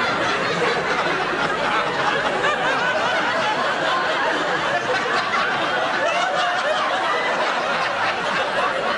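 Studio audience laughing: many voices at once in one long, steady spell of laughter.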